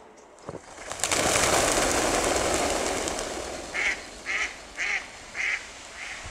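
A flock of mallards taking off together: a sudden loud rush of many wingbeats about a second in that fades over a couple of seconds, then a run of about five quacks, each fainter than the last.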